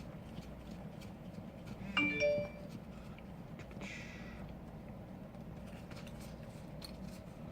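A short electronic chime about two seconds in, several clear tones sounding together for about half a second, followed by a brief soft hiss about four seconds in, over a low steady hum and faint small clicks.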